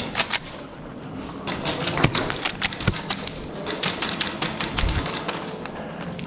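Rapid, irregular clicks and knocks, with thuds about two and three seconds in.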